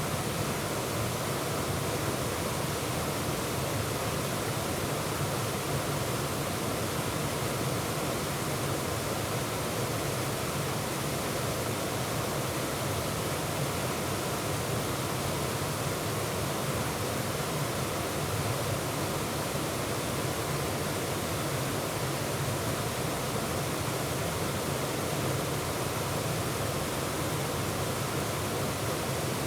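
Waterfall pouring steadily, a dense, even rush of white water with no change.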